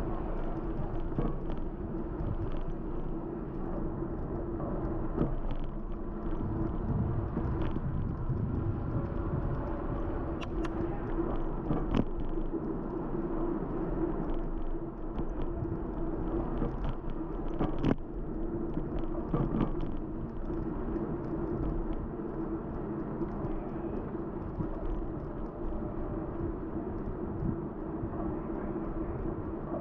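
Steady rumble of wind and road noise on a camera riding a moving bicycle along a paved street, with a constant low hum and a few sharp clicks.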